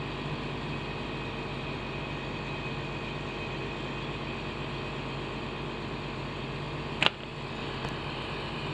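Motor home engine idling steadily. A single sharp click comes about seven seconds in, with a faint tick just under a second later.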